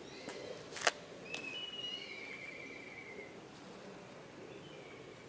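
Small birds chirping, with one high, wavering trill lasting about a second and a half. Over the first second and a half there are a few sharp clicks, the loudest about a second in.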